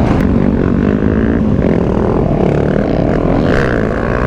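Dirt bike engine running loudly, its pitch rising and falling as the throttle is worked.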